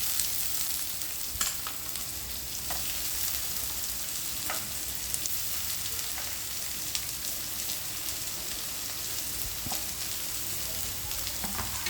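Chopped onions frying in hot oil with garlic in a kadai, a steady loud sizzle. A few short clicks of a spatula stirring can be heard over it.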